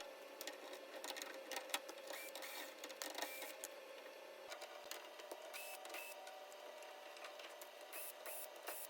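Faint, scattered clicks and light metallic clinks from the lock and latch mechanism of a 1954 Chevrolet Bel Air rear door being handled.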